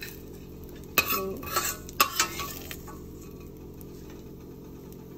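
A spoon clinking and scraping against a stainless steel pot as fried gundruk, dried fermented greens, is scooped out onto a plate. There are a few sharp clinks between about one and two seconds in, then only a faint steady background.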